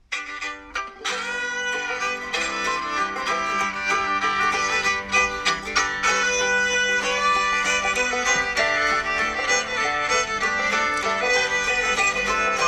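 Background music led by a fiddle over plucked strings, starting abruptly.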